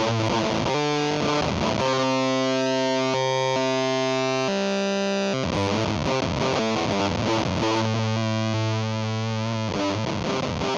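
Electric guitar, an Epiphone SG 400, played through a Z.Vex Fuzz Factory fuzz pedal into a clean amp simulation: fuzzy distorted riffing with notes left ringing about two seconds in and again near the end.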